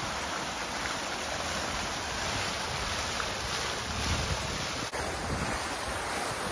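Fountain water pouring and splashing into its stone basin, a steady rushing hiss, with wind buffeting the microphone. The sound breaks for an instant about five seconds in, then carries on much the same.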